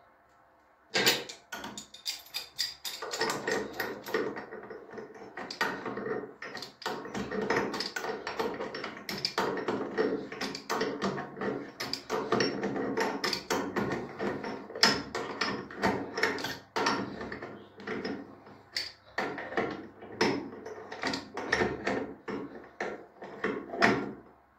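A wrench tightening the new brass nut at the base of a basin mixer tap, sealing a leak there: rapid, irregular metal clicks and clinks, starting about a second in.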